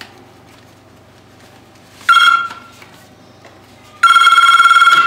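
Corded desk telephone ringing with an electronic ring: a short ring about two seconds in, then a longer ring of about a second near the end.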